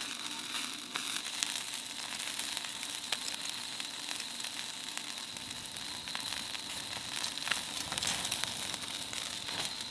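Chicken-skin skewers sizzling on a grill grate over a smoky wood fire, with a steady hiss and many small crackles and pops of fat and burning wood.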